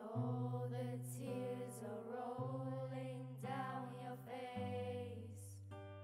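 Live music: a voice singing a slow melody over held acoustic guitar chords that change about every two seconds.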